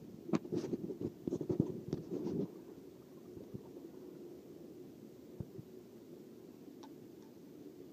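Pool water splashing and sloshing against a phone in a sealed waterproof case as it goes under the surface, with a flurry of clicks and splashes for about the first two and a half seconds. Then a muffled, steady low underwater hum with a few faint clicks, heard through the waterproof case.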